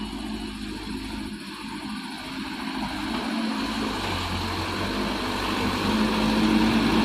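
Diesel engine of a loaded Mitsubishi Fuso Canter light truck running steadily, growing louder from about halfway through as the truck comes closer.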